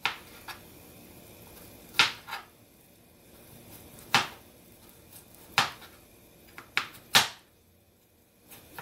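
Kitchen knife chopping raw green papaya on a plastic cutting board: sharp, irregular knocks of the blade striking the board, roughly one a second, with a quiet stretch near the end.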